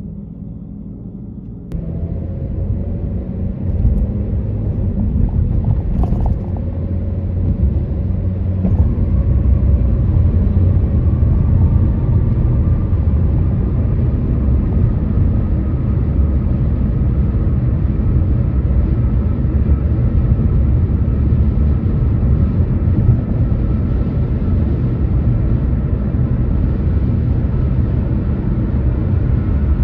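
Road noise of a car driving across a bridge: a steady low rumble that builds over the first several seconds, with a couple of sharp knocks about 4 and 6 seconds in. A faint whine rides over the rumble in the second half.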